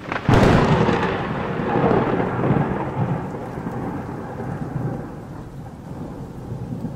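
Thunder-and-rain sound effect: a sudden thunderclap about a third of a second in, rumbling and slowly dying away over several seconds into a steady hiss of rain.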